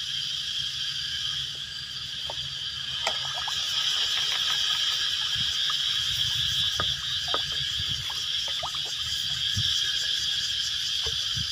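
Steady high-pitched insect chorus, with scattered short chirps and clicks over it.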